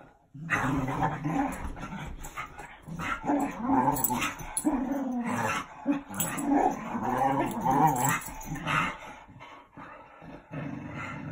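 Two dogs play-fighting, growling at each other in uneven bursts with the odd yip. It dies down for a moment near the end.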